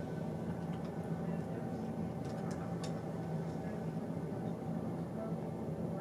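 Indoor room tone: a steady low hum, like a household fan or furnace blower, with a few faint ticks between two and three seconds in.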